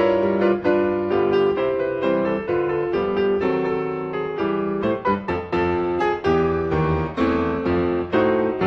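Piano music: a steady flow of notes over held chords.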